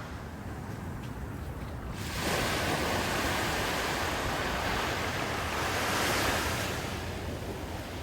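Ocean surf breaking and washing up the shore, with wind rumbling on the microphone. The wash of noise rises suddenly about two seconds in, swells, then fades near the end.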